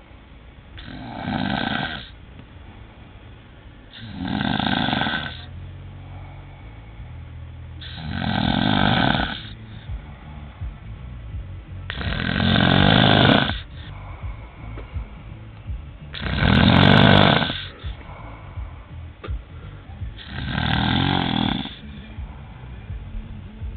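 A man snoring loudly: a long, rasping snore about every four seconds, six in all.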